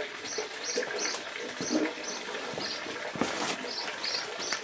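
A small bird chirping outdoors: a string of short, high notes, often in pairs, over faint background noise. There is a brief rustle about three seconds in.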